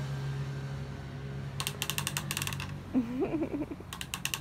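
Rapid light plastic clicking from a small candy bottle as its red cap is worked by hand, in two runs of about a second each. There is a brief low vocal sound between them.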